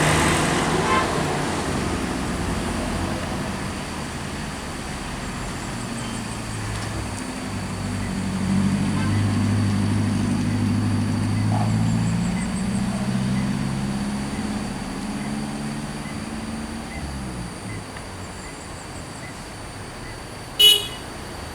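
A heavy road vehicle's engine running past, growing louder to a peak about halfway through and then fading away. Near the end a single short horn toot.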